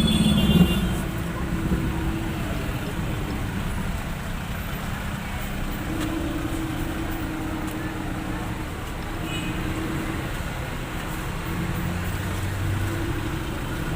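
Street traffic: motor vehicles running and passing by in a steady low rumble, with engine tones swelling and fading every few seconds.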